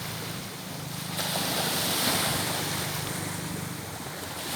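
Sea surf washing on a beach: a steady rush of noise that swells about a second in and eases off toward the end.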